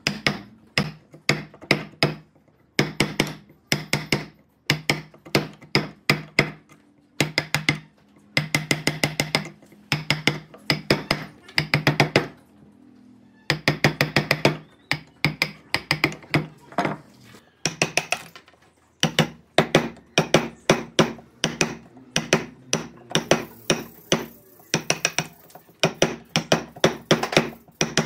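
Hammer blows in quick runs of several strikes each, with short pauses between runs; each blow rings briefly.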